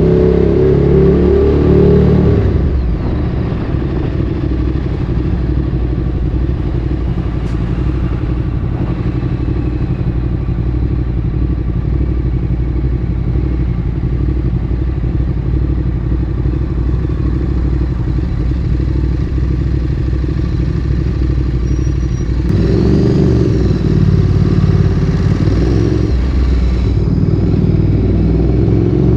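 Ducati Streetfighter 848's L-twin engine through a Termignoni exhaust. It comes off a pull in the first couple of seconds, then holds a steady, lower note for about twenty seconds. Near the end it revs up again with rising pitch.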